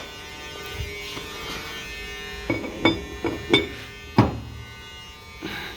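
Metal saw parts knocked and clinked by hand as a fitted piece is checked for play: four sharp ringing knocks in the second half, the last the loudest. A steady electrical hum runs underneath.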